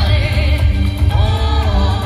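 Music with a singing voice over a strong, steady bass.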